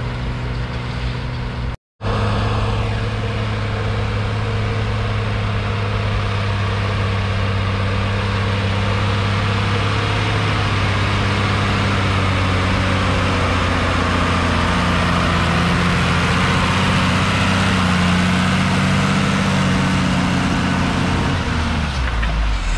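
John Deere 3650's 5.9-litre six-cylinder diesel engine running steadily under load while pulling a plough, with a brief total cut-out about two seconds in and the engine note dropping near the end.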